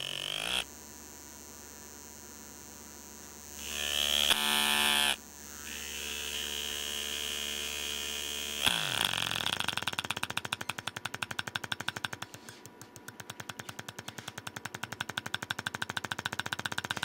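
Image-shifting actuator from a DLP rear-projection TV, driven electrically from a signal generator. It gives a short buzz about four seconds in, and from about halfway it pulses in a fast, even rhythm.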